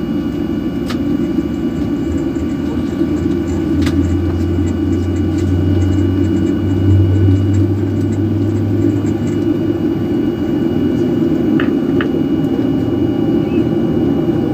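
Cabin noise of a Boeing 737-800 taxiing: the steady rumble of its CFM56-7B turbofans at taxi power, with a faint whine. The low hum swells for a few seconds in the middle. A few light clicks are heard.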